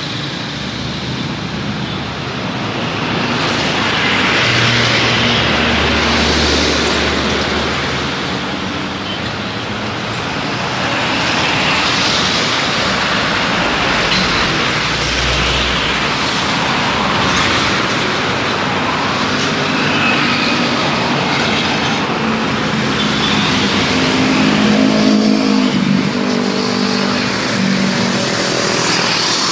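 Steady roadway traffic, with motorcycles and trucks passing close by, swelling as each vehicle goes past. A heavier engine drone stands out near the end.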